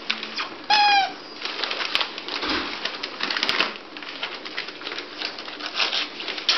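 A five-week-old bulldog puppy gives one short high squeal about a second in, over steady rustling and crinkling of newspaper as the litter scrambles about on it.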